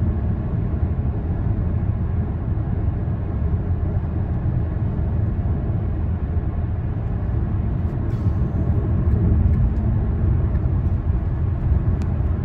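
Steady low road rumble of a car driving, heard from inside the cabin: tyre and engine noise with no sharp events, apart from a few faint clicks about eight seconds in and near the end.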